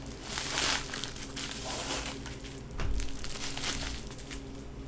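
Plastic bag crinkling and rustling as it is handled, with a knock about three seconds in.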